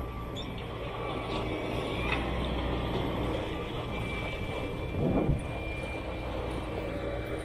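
Diesel engines of heavy earthmoving machines, a Sumitomo 490 excavator and a Caterpillar crawler loader, running steadily while digging, with a brief louder moment about five seconds in.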